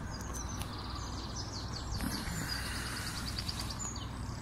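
Songbirds singing, with a fast trill of high notes in the middle, over a steady low rumble.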